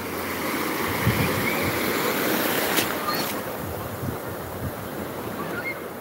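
Small sea waves breaking and washing over shallow water at the shoreline, swelling about a second in and easing off after a few seconds, with wind gusting on the microphone.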